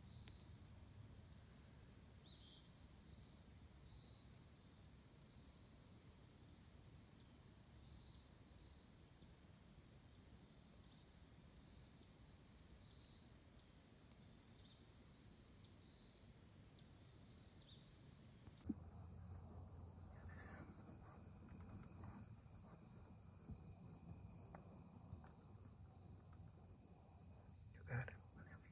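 Faint, steady high-pitched insect chorus in the woods. It shifts to a slightly lower pitch with a click about two-thirds of the way through, and there is a short thump near the end.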